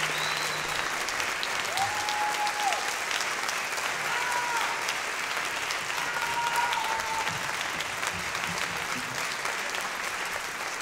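Audience applauding steadily, with a few short cheers rising out of the clapping.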